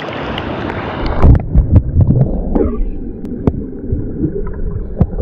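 River water rushing at the surface, then about a second in the sound plunges underwater with a few splashing knocks and turns to a muffled low rumble with bubbly clicks.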